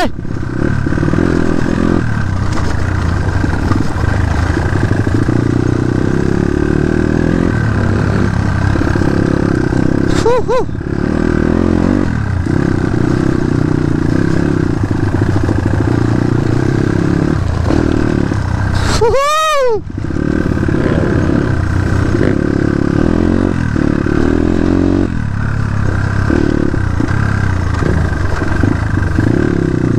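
Dirt bike engine running steadily while being ridden. About 19 seconds in, the pitch rises and falls once, briefly.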